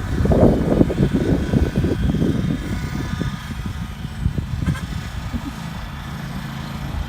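Lawnmower engine running steadily while it tows a sled through snow, growing fainter over the second half.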